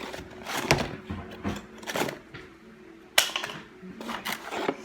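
Small plastic slime containers and packaging being handled and set down: a few separate clicks and knocks, with a sharper crinkle of packaging about three seconds in.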